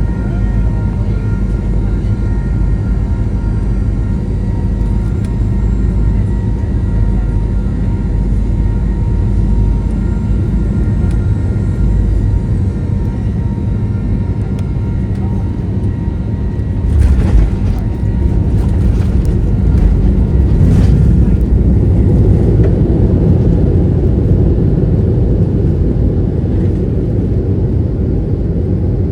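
Cabin noise of a Boeing 737-900 landing: steady engine hum and airflow with a few whining tones, then, a little over halfway through, a sudden jolt and rattle as the wheels touch down, followed by a louder rumble as the jet rolls out and slows on the runway.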